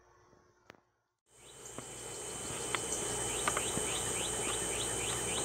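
Outdoor insect chorus fading in after a brief silence about a second in: a steady high-pitched insect drone with a quick, regular run of short rising chirps, about three a second.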